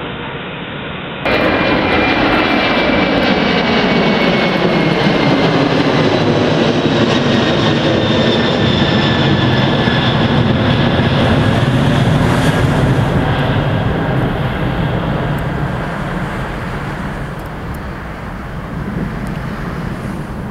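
Boeing 747-400 jet engines climbing out overhead: a loud, steady rumble with whining tones that slowly fall in pitch as the jet passes and moves away. It jumps louder about a second in and eases a little near the end.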